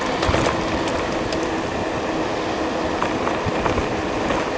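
Steady rumbling road and wind noise from riding an electric bike, with a faint steady hum and a few light rattles.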